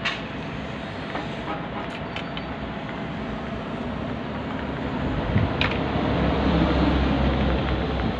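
Steady background noise with a low rumble that grows louder from about five seconds in, and a few light clicks as small parts and wires are handled.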